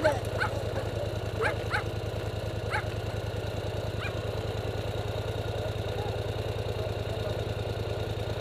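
Polaris Sportsman 850 XP ATV engine idling steadily. A dog gives several short, high yips over it in the first four seconds.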